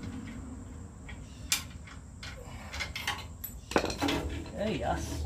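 Hand tools clinking and clicking against metal while the exhaust pipe's nuts and clamps are undone, with two sharper clinks about one and a half and nearly four seconds in.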